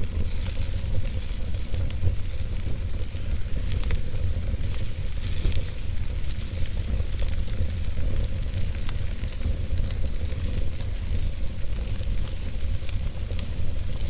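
Wood fire crackling and hissing in a fireplace, with scattered small pops, over a steady low rumble.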